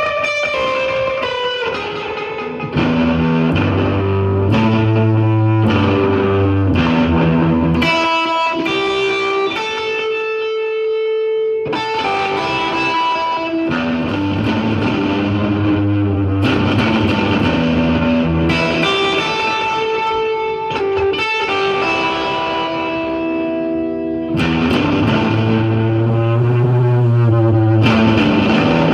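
Fuzz-distorted electric guitar played through a long delay, notes repeating and overlapping in a continuous wash of echoes.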